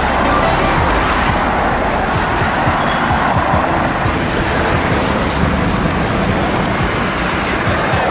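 Steady road traffic noise: a continuous, loud rush of passing vehicles with no single engine standing out.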